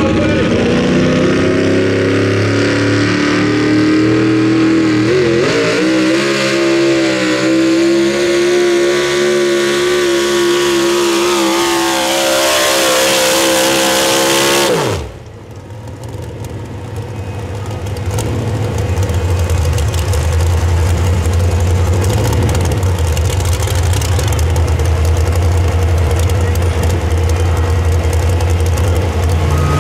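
Supercharged pro modified 4WD pulling truck at full throttle dragging a pull sled, its engine pitch climbing over the first several seconds and then held high. About halfway through the engine is cut off suddenly, its pitch dropping away at the end of the pull. A lower, steady engine sound then runs on.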